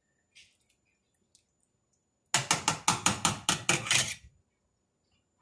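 Metal spatula rapped against the rim of a stainless steel stockpot: a quick run of about ten sharp metallic clinks, about five a second, over roughly two seconds, shaking off noodles and broth.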